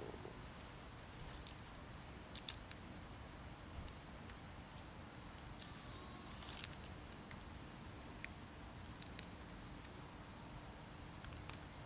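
Crickets trilling in a faint, steady, high-pitched chorus, with a few light clicks and ticks scattered through.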